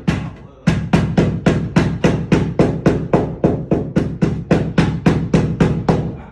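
Rapid hammering, about four blows a second, with a brief pause just after the start.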